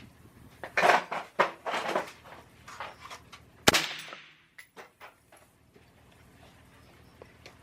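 Gunshots on a shooting range: a cluster of loud reports in the first two seconds, then one sharp shot about three and a half seconds in with a reverberating tail.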